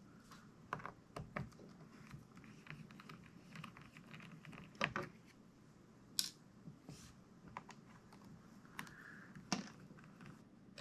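Faint, irregular small clicks and taps of a precision screwdriver and its bit set being handled: bits taken from and fitted back into a plastic bit case, with a few sharper clicks among them.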